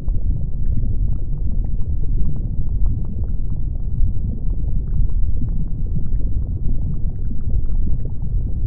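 Volcanic eruption: a low, steady rumble with many small crackles and pops scattered through it.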